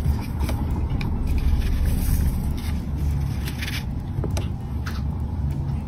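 A hamster scrabbling and rolling in a plastic tub of bath sand: scattered short scratchy rustles of sand against plastic over a steady low rumble.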